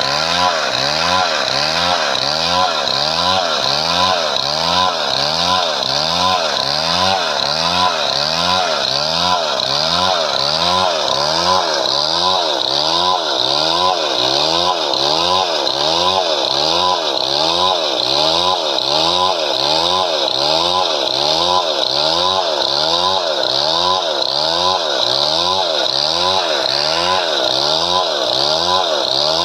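Chainsaw running continuously through padauk wood, its pitch swinging up and down in a fast, even rhythm of a little under twice a second.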